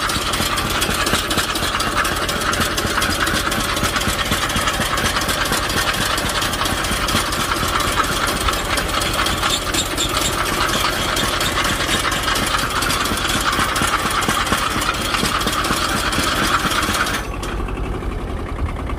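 Engine of the machine pulling a homemade sweet potato digger, running steadily under load as the plow blade cuts through the soil, then suddenly easing off near the end.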